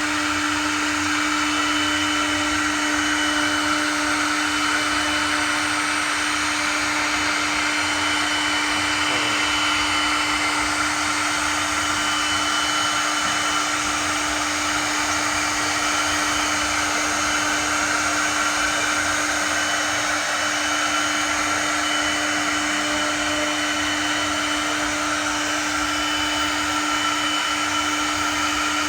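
CNC router spindle running steadily while carving wood: a constant motor whine over an even whirring noise.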